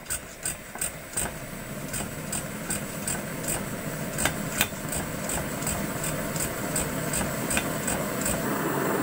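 Kerosene pressure stove being pumped up after preheating: short sharp pump strokes about two to three times a second while the burner's noise grows steadily louder as the pressure builds and the burner catches.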